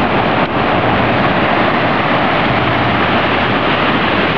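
Loud, steady rush of a creek in flood, fast, turbid water churning along the bank.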